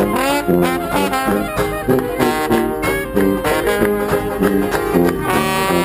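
Small live traditional jazz band playing: a tuba pumps short bass notes about twice a second under clarinet and brass horn lines.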